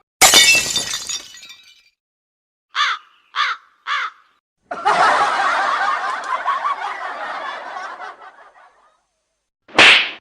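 A string of comedy sound effects: a loud crash-like burst at the start, three short pitched calls about half a second apart, a longer dense noisy stretch that fades out, and a short sharp burst near the end.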